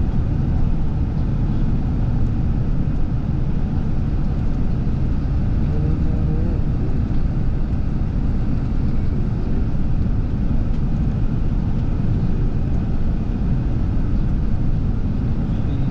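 Steady low rumble of a moving vehicle heard from inside: engine and road noise, even in level throughout.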